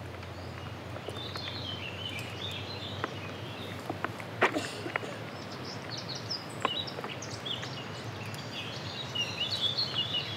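Birds singing and chirping over a steady low outdoor background, with a few sharp clicks, the loudest about four and a half seconds in.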